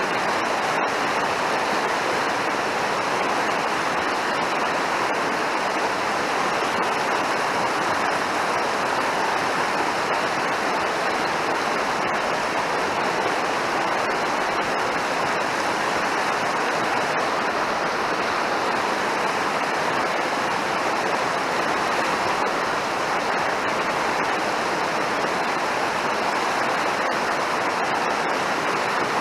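Mountain river water running steadily, an even, unbroken rush.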